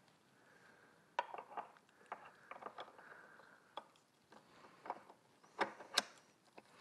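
Small metal parts of a power steering pump being handled and fitted during reassembly: faint, scattered clicks and light clinks with a little scraping in between.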